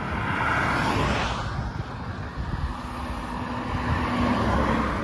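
Road traffic passing, with wind noise on the microphone; one vehicle swells past about a second in.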